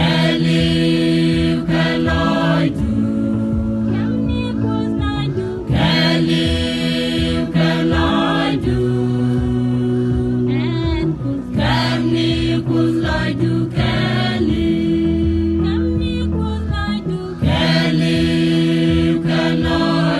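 A Christian choir of men and women singing together, with long held low notes underneath that shift every couple of seconds.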